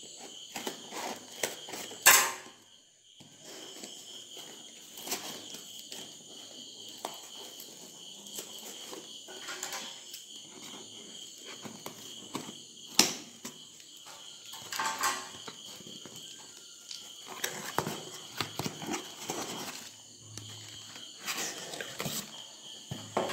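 Hands opening a cardboard shipping box: rustling and crinkling of cardboard and paper, with scattered knocks and a sharp crack about two seconds in and another near the middle. A steady high chirring of crickets runs underneath.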